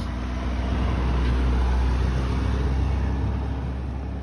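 A Volkswagen Tiguan SUV driving past on a snow-covered road. Its engine and tyres on the packed snow make a steady rumble that swells as it goes by, about two seconds in, then eases as it pulls away.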